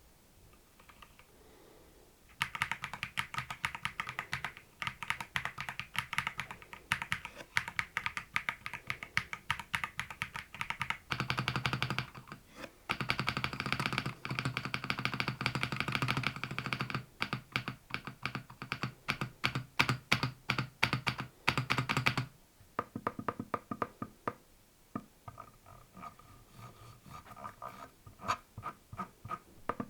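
Fast typing on a mechanical keyboard: a dense run of key clicks and thocks that starts a couple of seconds in. The sound changes character about eleven seconds in, turning deeper and fuller, and again near the end, where it becomes quieter and sparser.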